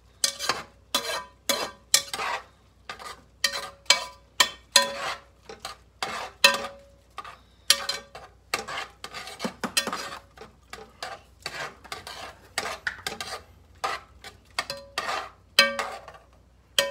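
A spoon stirring and scraping in a metal pot, knocking against the sides in quick, irregular clinks, two or three a second, each with a brief ring.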